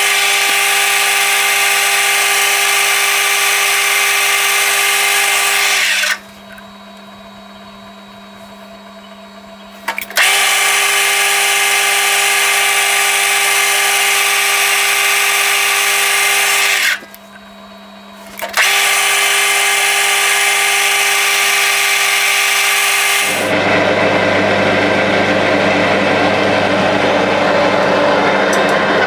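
Metal lathe turning a bar down to diameter. It makes three long cutting passes, each a loud, steady, high-pitched whine lasting five to seven seconds, with the lathe's much quieter running hum between them. About six seconds before the end, a lower, rougher cutting noise takes over.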